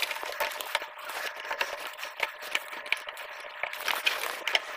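Rubber door gasket of a front-load washing machine being pressed and worked by hand onto the rim of the front panel opening: a run of small rubbing scrapes and clicks.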